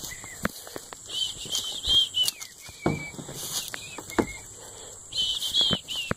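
Footsteps through grass and leaf litter with scattered knocks from handling the phone, under repeated short high chirps from birds.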